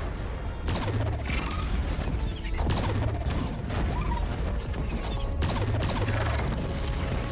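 Sci-fi space battle sound effects: a string of explosions and weapon-fire impacts over a deep low rumble, with background music.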